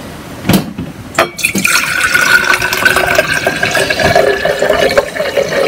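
Brown rice vinegar poured from a small glass jar into a large glass mason jar, a steady splashing fill that starts about one and a half seconds in. Two short knocks come just before the pouring begins.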